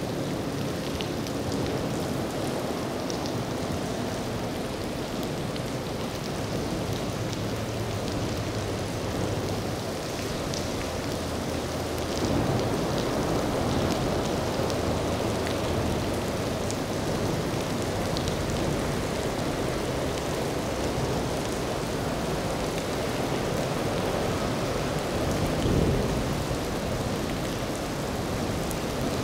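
Steady hiss of heavy rain with a low rumble underneath that swells briefly near the end.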